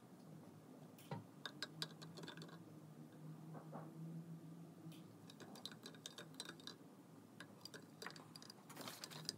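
Faint scattered clicks and light taps of a small plastic food-colouring bottle being handled over a glass jar, with a sharper tap near the end as it is set down on the table. A faint low hum lies underneath.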